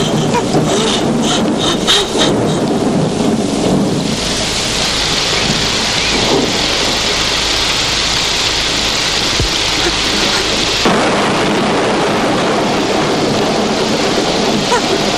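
Rain-and-thunder sound effect on an old film soundtrack: a steady rain hiss over a low rumble. The rain turns heavier and brighter from about four seconds in, then cuts off abruptly near eleven seconds.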